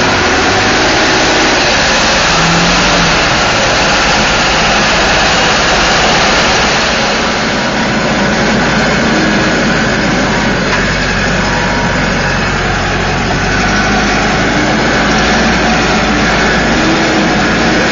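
Caterpillar 416C backhoe loader's diesel engine running loud and steady as the machine drives through deep mud, heard close from on board the machine.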